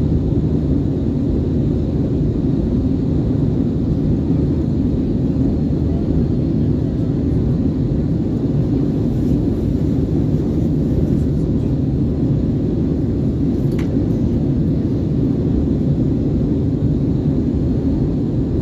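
Steady low rumble of an Airbus A320's jet engines and rushing air, heard inside the passenger cabin as the airliner climbs, with a faint click about two-thirds of the way through.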